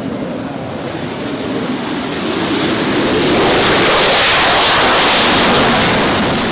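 Military jet passing overhead: a loud rushing jet noise that swells to a peak midway and fades near the end.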